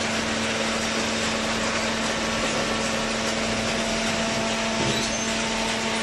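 Hydraulic cardboard baler's electric motor and pump running: a steady hum with one constant tone over even machine noise.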